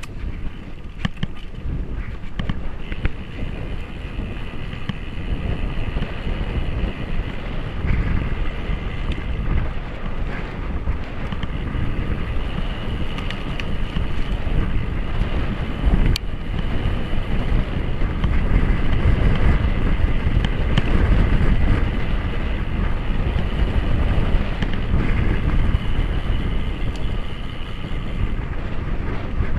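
Wind rushing over the microphone and tyre rumble from a road bike riding at speed along a country lane. There is one sharp knock about sixteen seconds in.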